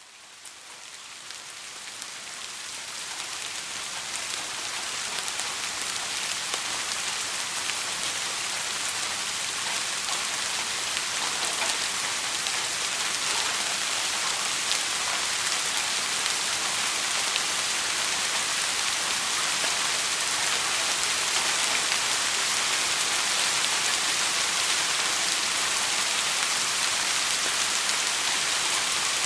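Steady rainfall, a dense hiss of drops hitting a surface with fine scattered patter. It fades in over the first several seconds, then holds steady.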